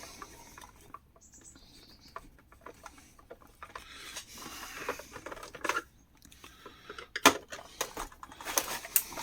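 Scattered clicks, taps and small knocks of hands and tools on a mini fridge's plastic casing as it is taken apart, with a brief rustle midway and a few sharper knocks near the end.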